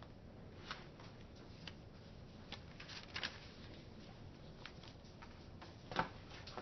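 Sheets of paper handouts being handled and sorted: faint scattered rustles and small taps, with a sharper tap about six seconds in.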